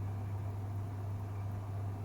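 Bosch Serie 8 WAW32590 front-loading washing machine running mid-cycle, a steady low hum with a soft even whoosh over it.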